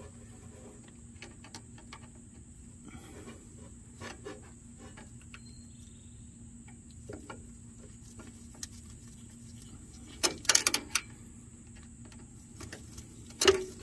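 Faint clicks, taps and scrapes of hand work on the rubber fuel line and fittings at a mechanical fuel pump, with a quick run of louder clicks about ten seconds in and another near the end.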